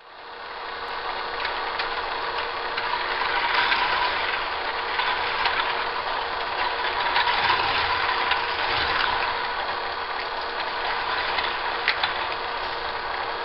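K'Nex roller coaster running: the small battery-powered motor hums steadily and the plastic lift chain clatters and ratchets through its gears, with a few sharp clicks near the end.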